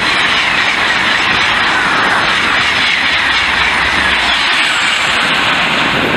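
French TGV high-speed train passing at speed: a loud, steady rushing noise of air and wheels on rail, with faint tones slowly falling in pitch as it goes by.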